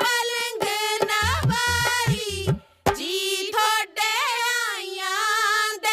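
Women singing Punjabi folk boliyan for giddha, with drum beats and sharp hand claps, ending on a long held note.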